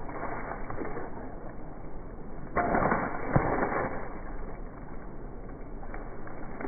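Something being struck and smashed: a burst of breaking noise starts about two and a half seconds in and lasts about a second and a half, with one sharp hit in the middle, over a steady background hiss.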